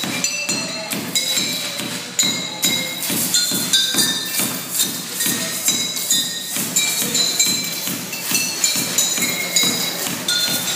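Improvised percussion: a basketball dribbled on a tiled floor in a quick, steady beat, with glass bottles struck over it in short, ringing clinks at a few different pitches.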